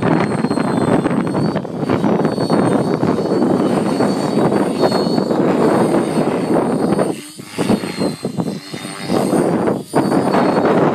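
Radio-controlled Raptor 50 nitro helicopter in aerobatic flight: its two-stroke glow engine running hard together with the whoosh of a multi-blade main rotor. The sound dips briefly about seven seconds in and again near ten seconds.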